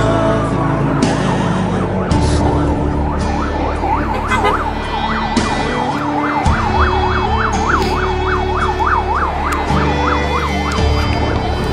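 Emergency siren in fast yelp, its pitch sweeping up and down about three times a second, over a song with steady instrumental backing.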